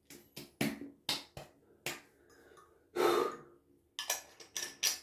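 Hand slapping and patting alcohol aftershave splash onto freshly shaved skin: about ten sharp slaps in uneven groups, with one longer, breathier sound about three seconds in.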